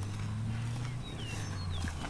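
Outdoor ambience: a low steady drone, with a few short falling bird chirps a little past a second in.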